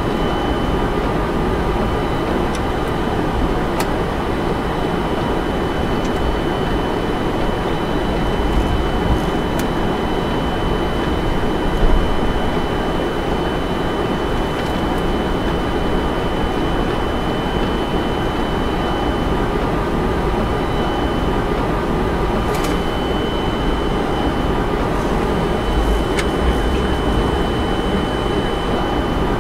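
Steady flight-deck noise of a Boeing 747-400 freighter taxiing: the low, even rumble and hiss of the engines at taxi power and the cockpit ventilation. Over it runs a thin, steady high tone, and a few light clicks come through now and then.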